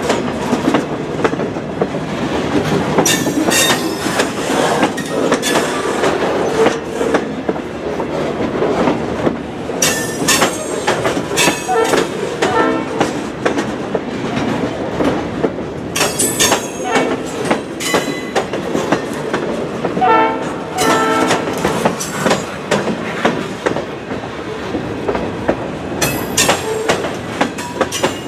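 Freight train cars, boxcars and centerbeam flatcars loaded with lumber, rolling past close by: a steady rumble of wheels on rail broken by many sharp clacks as the wheels cross rail joints.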